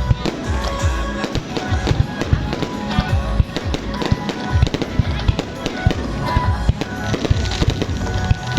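Fireworks bursting in a rapid, continuous barrage of booms and cracks, with deep thumps among them, over loud music from a sound system.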